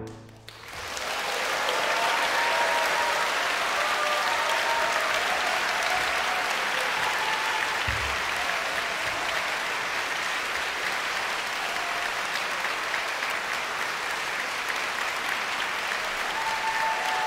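The ring of the last cello and piano chord fades in the first half second, then an audience applauds steadily.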